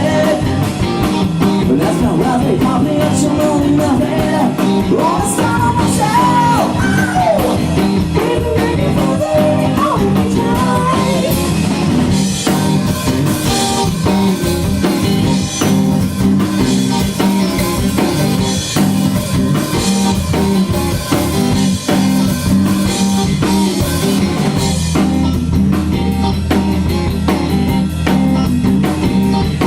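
Live rock band playing, with guitar and drum kit. A bending lead melody stands out over the first ten seconds or so.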